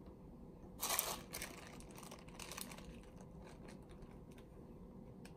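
Faint crinkling of a burrito's paper wrapper as it is handled, one louder rustle about a second in, then scattered small rustles and ticks.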